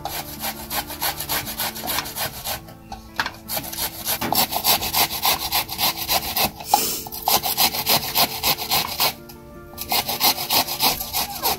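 Vegetables rasped up and down a metal hand grater in quick repeated scraping strokes, pausing briefly about three seconds in and again near the nine-second mark.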